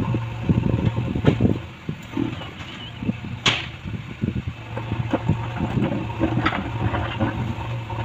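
JCB 3DX backhoe loader's diesel engine running steadily as the backhoe arm works among rocks, with repeated knocks and scrapes of stone and a sharp clank about three and a half seconds in.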